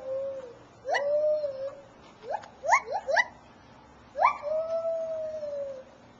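A white-handed (lar) gibbon calling in a series of hooting notes, each sweeping quickly up in pitch. Two of them run into long held notes that sag slightly, about a second in and again just past four seconds, with four short quick rising hoots in between.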